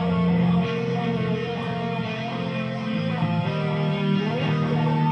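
Jackson electric guitar playing a lead line of held single notes, with a string bend rising in pitch about four seconds in.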